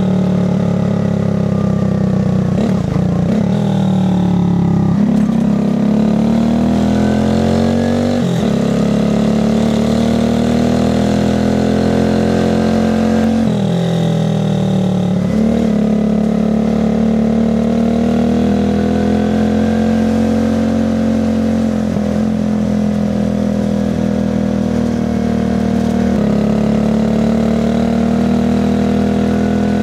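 Alpha moped's single-cylinder engine running under way, pulling through the gears. Its pitch climbs and then drops sharply several times as gears are changed, then holds fairly steady in the second half.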